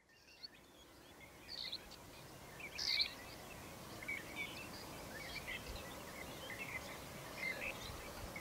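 Birds chirping, faint, over a steady background hush of room and outdoor ambience. The sound fades in from silence over the first second or two, with scattered short chirps throughout and the loudest chirp about three seconds in.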